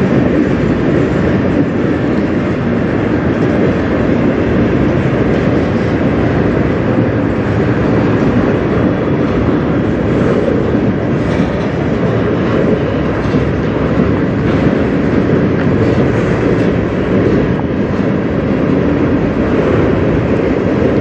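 Freight cars of a CN manifest train rolling past: steel wheels running on the rails in a steady rumble.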